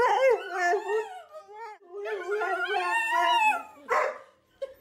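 Pet dogs howling in protest: two long, wavering howls, the second starting about two seconds in, followed by a short, harsher cry near the end.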